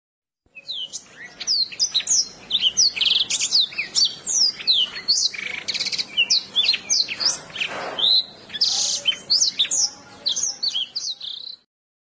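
Blackthroat (black-throated canary) singing: a fast, varied run of short sweeping whistles and trills that starts about half a second in and cuts off near the end.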